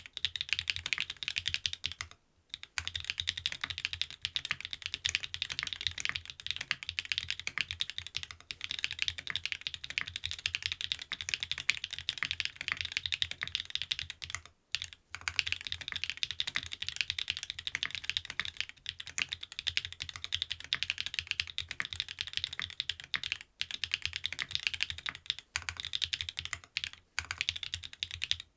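Fast continuous typing on a mechanical keyboard with SW x Gateron Deepping switches in an aluminium plate and PBT keycaps, a dense run of key clacks with short pauses about two seconds in, about halfway through, and a few near the end.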